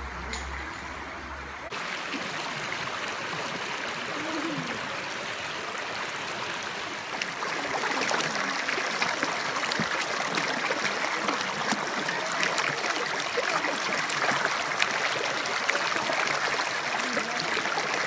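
Mountain stream water running and trickling over rocks, a steady rushing that grows louder and brighter about seven seconds in.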